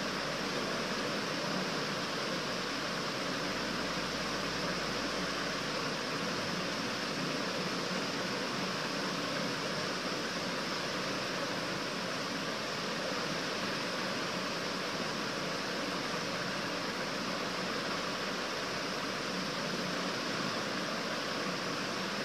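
Steady, even hiss of background noise with nothing else standing out.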